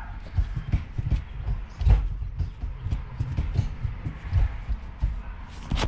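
Honda Civic manual gear shifter being worked through the gears, with a run of irregular clicks and clunks as the lever moves and drops into each gate; the newly fitted shifter moves smoothly.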